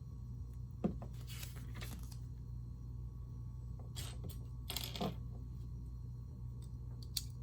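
Small LEGO plastic pieces being handled and snapped together: three sharp clicks and two short rustles, over a steady low hum.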